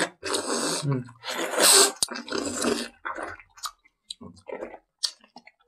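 People slurping and sucking juicy jelly out of torn-open plastic jelly pouches: a few noisy slurps in the first two seconds, a sharp click about two seconds in, then quieter smacking and small crinkles.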